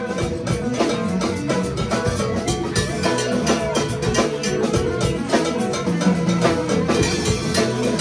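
Live band playing an instrumental groove: electric guitar and keyboards over a heavy bass line and drum kit, with a percussionist striking timbales in a steady, busy rhythm.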